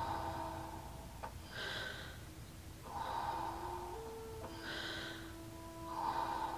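Deep, forceful breaths in and out through the mouth, Wim Hof method power breathing with no pause between inhale and exhale. There are five breaths, about one every second and a half, alternating between a higher hissing draw and a lower, fuller release. A soft sustained music drone plays underneath.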